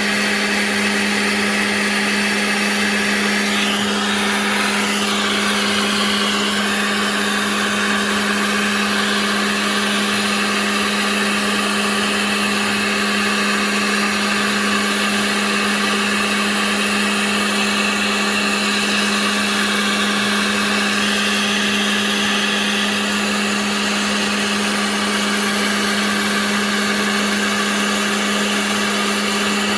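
Genmitsu 3020 PRO MAX CNC router milling: the spindle runs with a steady tone while the bit cuts, with a constant noise of cutting over it.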